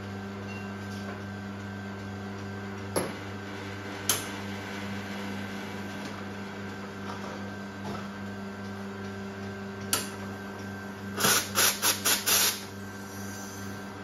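Expobar Carat espresso machine humming steadily as its pump runs during extraction, with a few sharp clinks of cups about three, four and ten seconds in. Near the end comes a quick run of short, loud noisy bursts.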